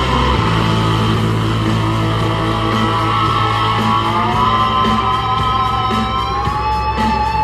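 Rock song with electric guitar playing from a Guitar Hero arcade cabinet, over a steady bass and a light beat. Its held guitar notes glide upward about four seconds in.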